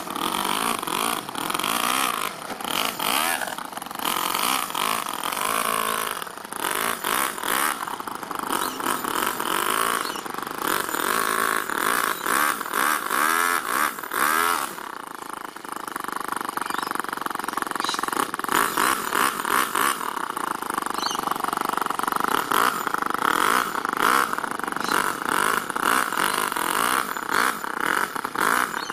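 Toyan FS-L200 two-cylinder four-stroke nitro model engine running in an RC crawler, its pitch rising and falling as the throttle is worked over rocks, then running more steadily for the last half.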